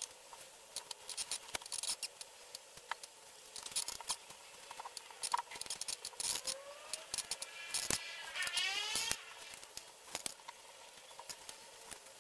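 Nylon paracord rustling and clicking as it is worked and pulled tight through the braid on a bracelet jig, with a few short rising squeaks about halfway through.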